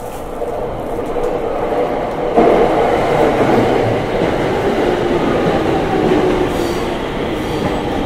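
JR Yamanote Line electric train pulling in along the platform: the rumble of wheels and cars jumps up about two and a half seconds in and holds, with a faint steady whine over it.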